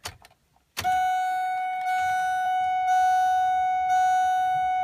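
A few faint clicks, then, about a second in, a steady, unbroken high electronic warning tone from the truck's dashboard chime sounds with the ignition switched on. The engine is not yet cranking.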